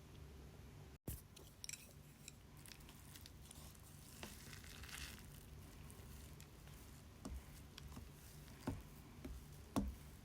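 Faint handling sounds: soft rustling with scattered light knocks and clicks over a low steady hum, broken by a brief dropout about a second in.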